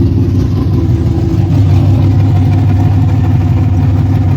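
The newly installed carbureted car engine running at a loud, steady idle with a fast pulsing rumble.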